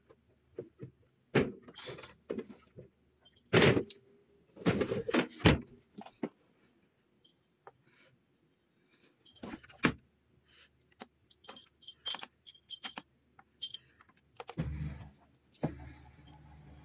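Irregular household clatter: knocks, clinks and clicks of things being handled and set down, a few of them loud. A low steady hum starts near the end.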